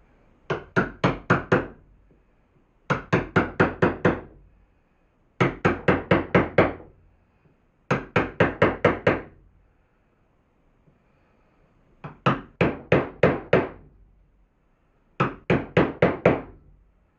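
A wood chisel being struck, chopping out a relief in the underside of a workbench: six quick runs of five or six sharp blows each, about four blows a second, with short pauses between runs and a longer pause near the middle.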